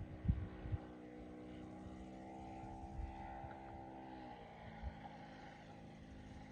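3W-157 gasoline engine of a large RC model airplane running steadily in flight, then throttled back about four seconds in so its pitch drops. A few short low thumps are also heard.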